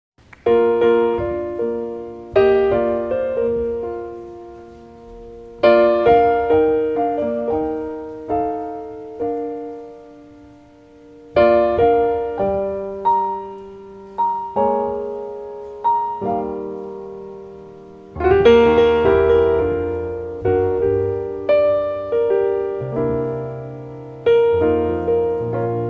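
Slow solo piano introduction to a ballad: chords struck and left to ring and fade, in phrases a few seconds apart, with low bass notes joining about two-thirds of the way in.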